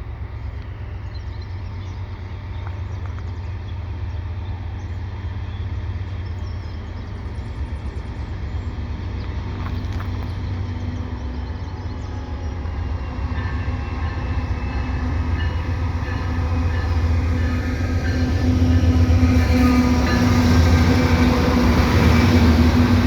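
Approaching freight train led by a GE AC4400CWM and a GE C44-9W diesel locomotive, their engines droning steadily and growing gradually louder as the train draws near. A further low tone and higher steady tones join about halfway through.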